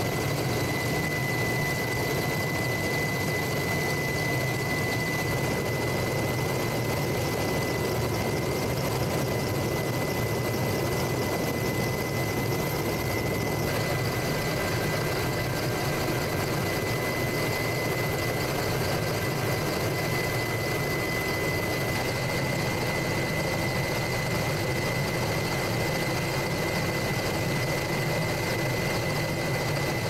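Steady drone of a helicopter's engines and rotor heard from on board, with a constant high whine over it.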